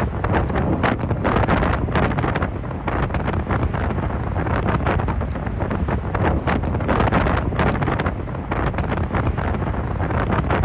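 Strong storm wind gusting hard across the microphone: a loud, constant rushing roar with rapid buffeting gusts.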